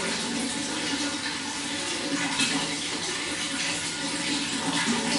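Running water flowing steadily, a dense splashing rush with small flickers of spatter.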